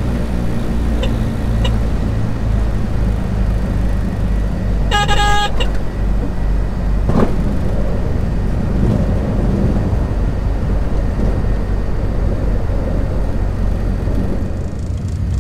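Britten-Norman BN-2B Islander's twin piston engines and propellers running at low power while the aircraft taxis, heard from inside the cabin as a steady low drone. About five seconds in, a short horn-like tone sounds once.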